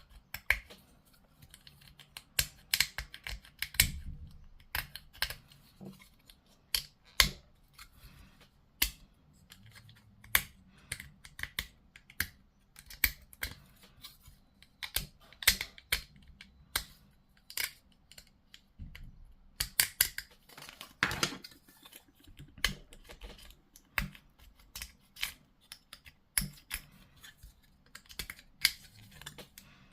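Hard plastic model-kit parts being worked by hand: a long run of irregular sharp clicks and snips, as of sprue clippers cutting pieces and plastic parts knocking together.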